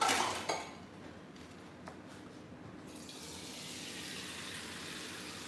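A brief clatter, then about three seconds in a tap starts running into a sink with a steady hiss of water.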